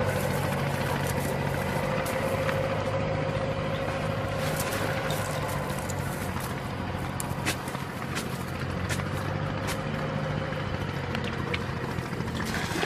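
An engine running steadily with a low hum, with a few scattered light clicks and clinks from the chain weights of a cast net being handled.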